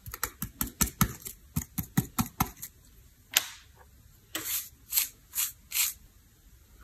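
Eyeshadow being scraped and tapped out of a plastic palette into a glass dish with a spatula. A quick run of sharp taps and clicks, about four a second, comes first, then one longer scrape and four short swishing strokes about half a second apart.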